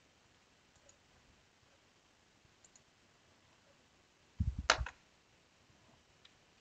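Computer mouse clicks and handling on a desk in a quiet room: a few faint clicks, then a short clatter of knocks with one sharp click about four and a half seconds in.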